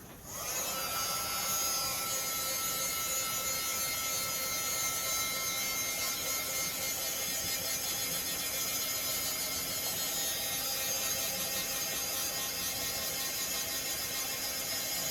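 Craft heat tool switched on just after the start and running steadily, its fan blowing with a whine of several steady tones.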